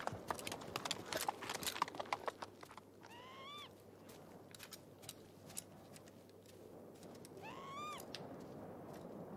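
A horse's hooves clopping on rocky ground for the first couple of seconds as it moves off, then a bird calls twice, about four seconds apart, each a short call that rises in pitch and levels off.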